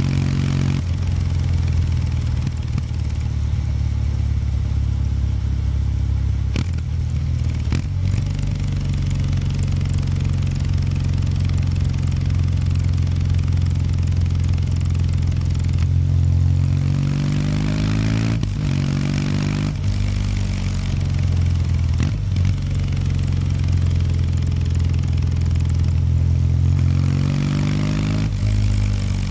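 Kawasaki W800 Street's air-cooled parallel-twin engine running through its stock exhaust while the bike is ridden. It holds a steady cruising note, then in the second half climbs in pitch under acceleration a few times and drops back each time.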